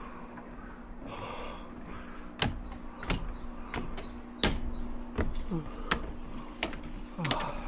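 Footsteps: a series of sharp knocks, roughly one every half-second to second, over a steady low hum.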